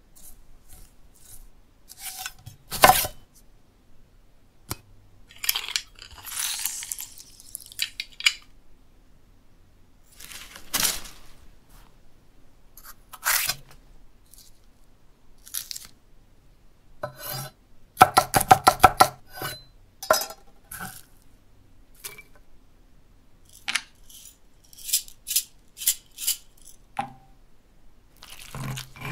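Foley for stop-motion food preparation: a string of separate sharp clicks, knocks, chops and short scrapes on a wooden board and in a stone mortar, with a rapid run of about a dozen clicks in the middle.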